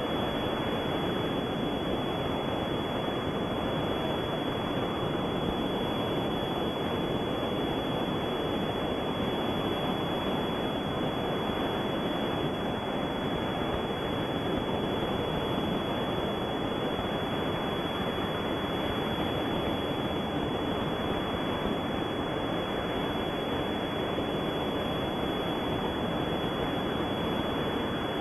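Steady rushing noise that does not change, heaviest in the low-middle range and cut off sharply above a fairly low pitch, with a thin, high steady tone over it. No engine note or voices stand out.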